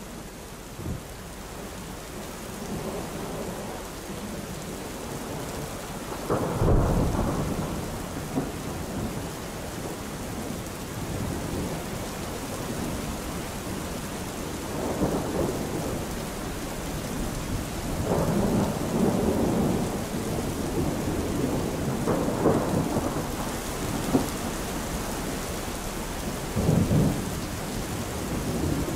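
Thunderstorm ambience: a steady hiss of rain with about five rolls of thunder, the loudest about six seconds in.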